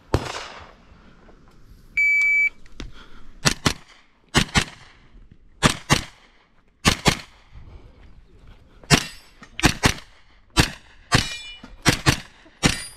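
Shot timer's start beep about two seconds in, then a JP GMR-15 pistol-caliber carbine firing rapid double taps, about a dozen quick pairs of sharp shots at targets.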